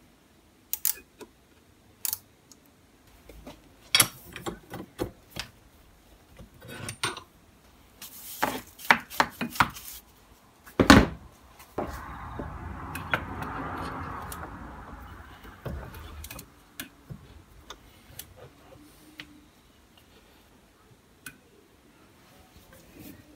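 Metal measuring tools being handled and set down at a lathe: scattered clicks and clinks, with one louder knock a little under halfway through, followed by a few seconds of softer rubbing noise.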